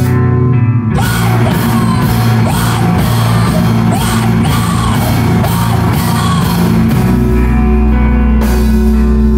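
Loud live rock music from a band: drums, bass and guitar, with vocals coming in about a second in and dropping out near the end.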